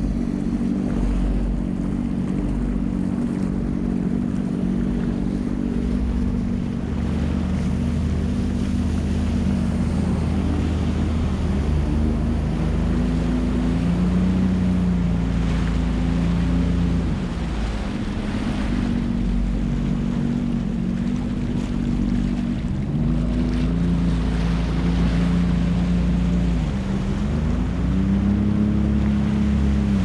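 Personal watercraft (jet ski) engine running under way, its note dropping and rising again several times as the throttle eases and opens, with water rush and wind buffeting the microphone.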